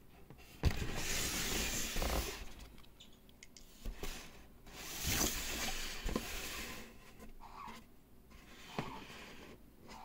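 Cardboard and paper packaging being handled: rustling and scraping in several spells, with a few light knocks.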